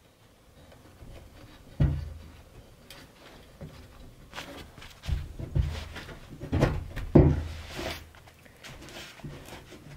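Several knocks and bangs on the steel frame and container wall as the frame is handled in its opening, each followed by a short low ring, the loudest just after 7 seconds, with rubbing and handling noise between them.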